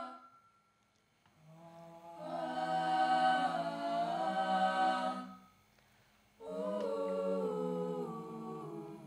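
A choir singing a cappella in harmony: two long phrases of slow, held notes, the first starting about a second and a half in and the second about six and a half seconds in after a short break.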